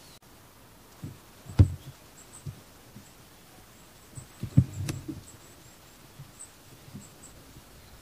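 A few dull low thumps, the loudest about one and a half seconds in and a cluster near five seconds, over faint short high-pitched chirps of distant small birds.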